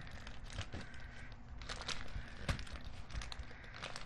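Handling noise from a plastic pop-up travel hairbrush being pressed and worked, with scattered light clicks and taps and a faint rustle. The button is stiff.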